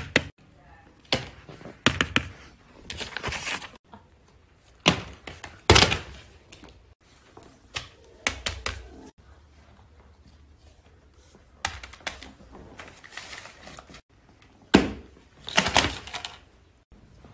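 Irregular sharp clicks and knocks, some in quick clusters, with short scraping rustles between them.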